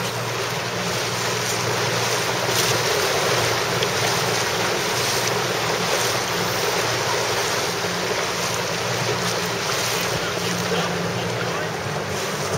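Wind buffeting the microphone and water rushing past a moving boat, with a low steady motor hum underneath.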